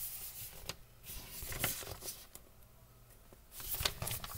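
Handling noise from a picture book held up close: a few faint taps, then a louder rustle of paper pages near the end.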